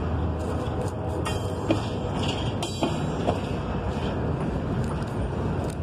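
Double-stack intermodal well cars of a freight train rolling past: a steady rumble of steel wheels on rail, with a few sharp clanks about one to three seconds in.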